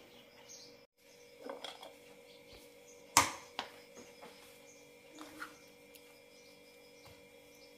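Light knocks from a ceramic plate being handled on a kitchen counter, over a faint steady hum. The sharpest knock comes about three seconds in, with a smaller one just after.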